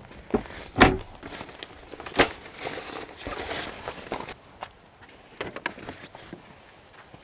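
Footsteps, with the knocks and rustling of gear being moved about in a van. A sharp knock comes just under a second in and another a little after two seconds, then rustling and a few light ticks.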